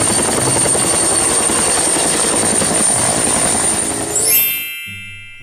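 Turbine helicopter hovering low after lifting off: a dense, rapid rotor beat with a steady high whine over it. About four seconds in, it gives way to a brief rising sweep and a chord of held tones.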